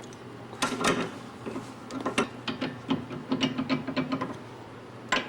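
Ratchet wrench clicking in quick, irregular strokes as a front sway bar link's nut is run down and tightened, with one last click near the end.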